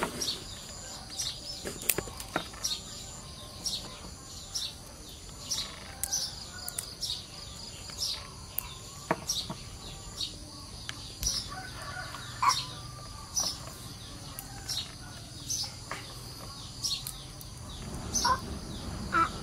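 Rural outdoor ambience: small birds chirping again and again, with a chicken clucking now and then, over a steady high-pitched hum.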